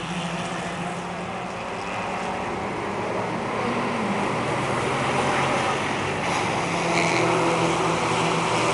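Race car engines running on a circuit, a steady drone that grows louder over the second half.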